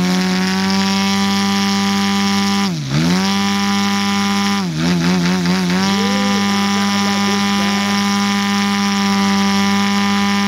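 Engine of a 41% Krill Extra 330SC radio-controlled aerobatic model plane running steadily on the ground. Its pitch creeps up at the start, the revs dip sharply and come back once about three seconds in, then waver up and down briefly around five seconds.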